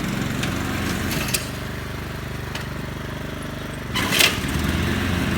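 Small motor scooter engine running steadily, dropping slightly after a click about a second and a half in, then running louder after a short burst of noise about four seconds in.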